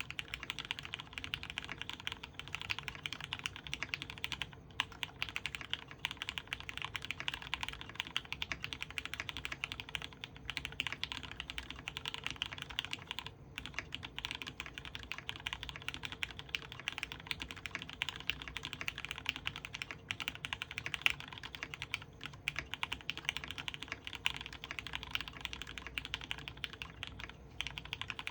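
Continuous fast typing on an Orion v2.5 custom mechanical keyboard with lubed Cherry Retooled Black linear switches, an aluminium plate and PBT keycaps: a dense stream of keystroke clacks, broken by a few brief pauses.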